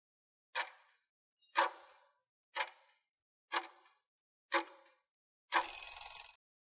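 Countdown-timer sound effect: five clock ticks, one a second, then a short, dense alarm-like burst just under a second long as the timer reaches zero.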